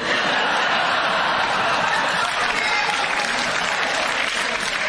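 Studio audience applauding, starting suddenly and holding steady.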